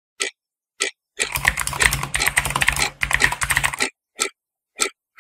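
Typing sound effect: two single key strikes, then about three seconds of rapid typing clatter over a low hum, then single strikes again about every half second.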